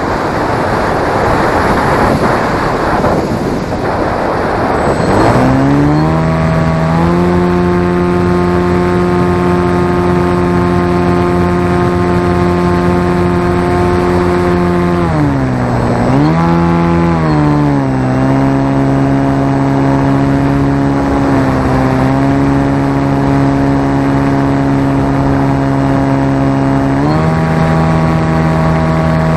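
Electric motor and propeller of a radio-controlled flying wing, heard from a camera mounted on the plane. For the first few seconds there is only wind rushing over the airframe; then the motor spins up to a steady whine, drops and rises again in pitch near the middle, and steps up in pitch near the end.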